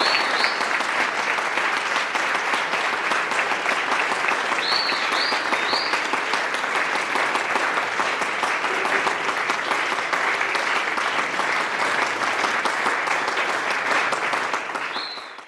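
Audience applauding steadily after a piano performance, with a few brief high whistles, fading out at the end.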